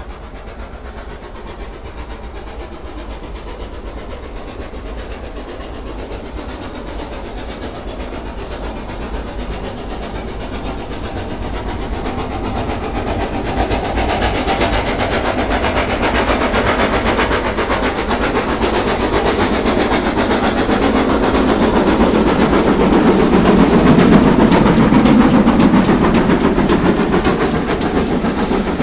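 A train running on rails, a steady noise with a dense rattle of clicks that grows gradually louder and is loudest near the end.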